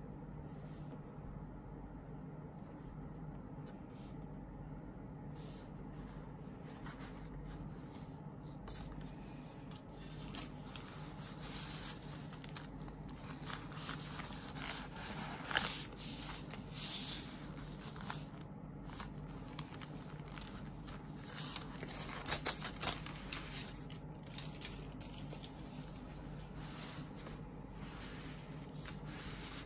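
Hands handling plastic-sleeved slogan banners and a clear zip pouch: intermittent plastic rustling, sliding and scraping, busiest in the middle with a few sharp crinkles about halfway and again about three-quarters through, over a steady low hum.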